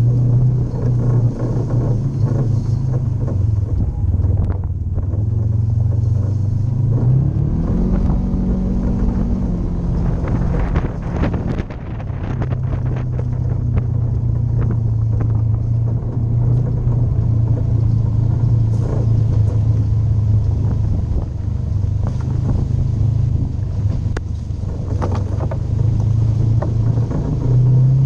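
Polaris RZR 900 side-by-side's twin-cylinder engine running under way on the trail, its pitch rising as it speeds up about eight seconds in. A spell of knocks and rattles follows shortly after, and a few more come near the end.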